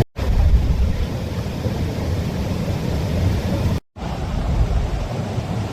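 Steady noise of rushing water, with heavy wind rumble on the microphone. The sound cuts out for an instant near the start and again about four seconds in.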